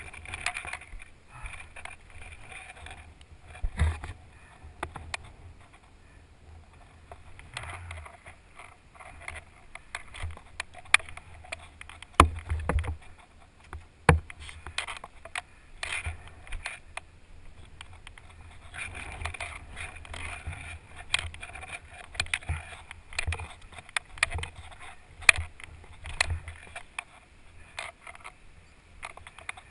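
Wind rumbling on the microphone, with scattered knocks and scrapes as the tipped-over ATV is handled in the sand; no engine is running.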